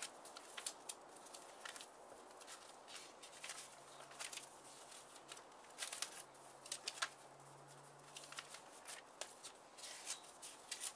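Hole-punched paper instruction sheets being flicked through in a ring binder: a run of quick, soft paper rustles and flaps as page after page is turned.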